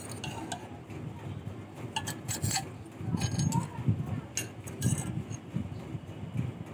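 Light metallic clinks and ticks at irregular intervals from steel wire and a metal rod being handled while a small wire torsion spring is formed by hand, with dull knocks of handling beneath.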